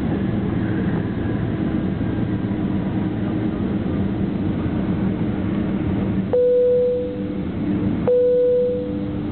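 Boeing 767-300ER's engines humming steadily at low taxi thrust, heard inside the cabin. Two identical chime-like tones ring out about six and eight seconds in, each fading over about a second.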